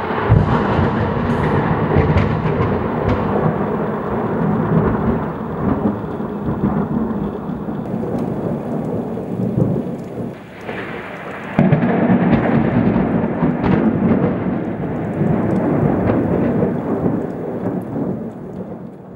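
Two long peals of close thunder. A sudden loud clap right at the start rolls on as a deep rumble for about ten seconds. A second sudden clap about twelve seconds in rumbles and then fades away near the end.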